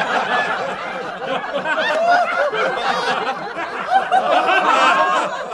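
Audience laughing: many voices chuckling and laughing at once, steady throughout, the laughter that follows a joke's punchline.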